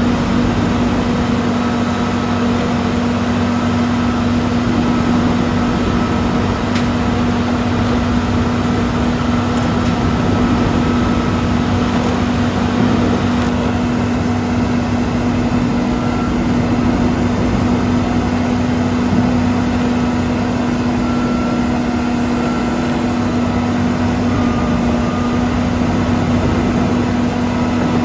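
Universal Refiner TDR-90 wood waste grinder running steadily while grinding brush and dirty wood into mulch. Its 300-horsepower Cummins M-11 inline-six diesel drones at a constant speed under load, a loud even roar with a steady hum.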